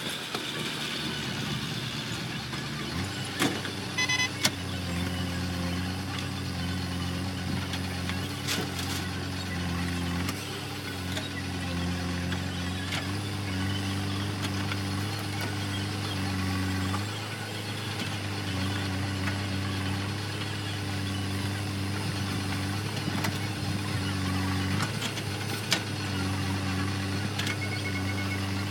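Diesel engine of heavy farm or earthmoving machinery running steadily, its pitch stepping up and down a few times. A few sharp knocks come in the first third.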